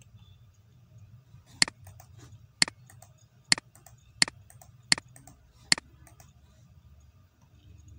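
Computer mouse clicking: six sharp clicks about a second apart, starting about a second and a half in and stopping near six seconds, over a faint low hum.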